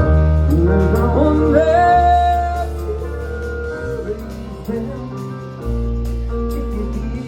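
A live band playing, with a singer's voice gliding over deep held bass notes and steady instrument chords.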